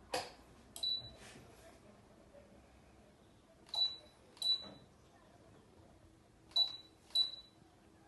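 A ceiling fan's remote-control receiver giving short high beeps as it accepts commands: a sharp click, then one beep, then two pairs of beeps.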